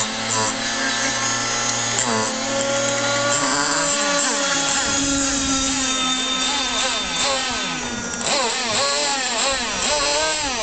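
Radio-controlled Donzi model speedboat's motor whining at speed, its pitch rising and falling again and again as the throttle is worked.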